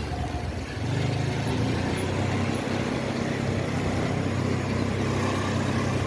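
Motor scooter running steadily while ridden slowly with two riders aboard, its engine hum mixed with road and wind noise; it gets a little louder about a second in.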